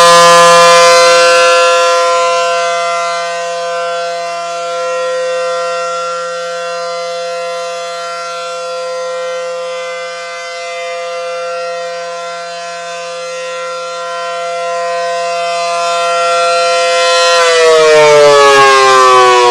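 ACA Allertor outdoor warning siren sounding a steady chord of several tones, its loudness slowly swelling and fading as the rotating siren turns. About 17 seconds in, the pitch starts to fall as the siren winds down at the end of the test.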